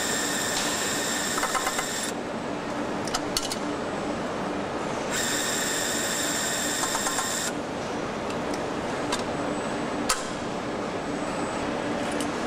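Factory-floor machinery noise in an engine and transmission plant: a steady hum and rumble, with scattered clicks. A high-pitched whine comes on twice, for about two seconds each time.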